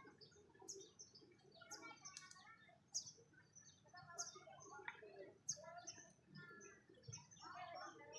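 Faint chatter of several small birds chirping, with sharp high chips roughly every second over a busy mix of shorter twittering notes.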